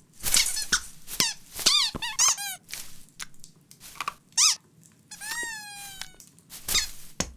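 A run of short, high squeaks, each rising then dropping in pitch, with clicks and rustles between them. A longer squeak slides down in pitch about five seconds in.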